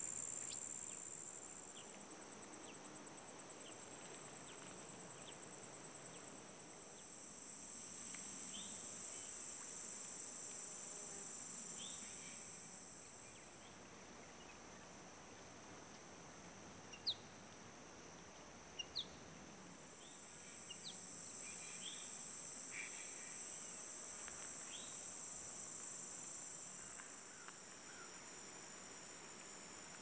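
Steady high-pitched insect chorus that swells louder twice and fades back between, with short bird chirps scattered through and a few faint clicks in the middle.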